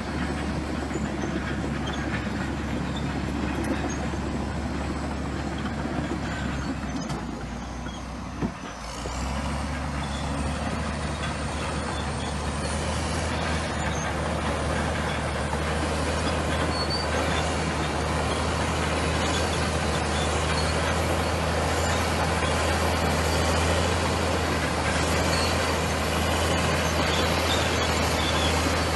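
Crawler bulldozer's diesel engine running steadily. It dips briefly with a sharp click about eight seconds in, then runs on somewhat louder.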